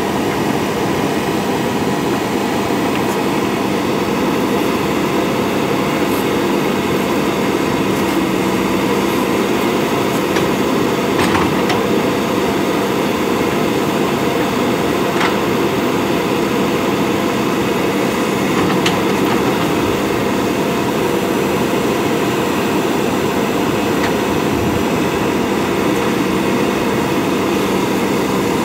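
JCB backhoe loader's diesel engine running steadily at a constant pitch, with a few light clicks about a third and two thirds of the way through.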